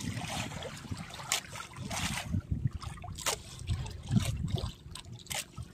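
Water lapping and trickling against a boat's hull at sea, with scattered sharp knocks at irregular moments.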